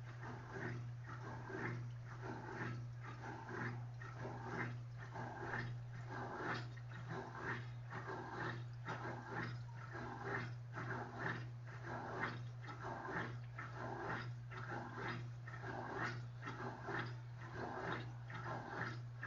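Electrolux LTD13 top-loading washing machine agitating during the rinse: a steady motor hum under an even swish of the agitator stroking back and forth about twice a second.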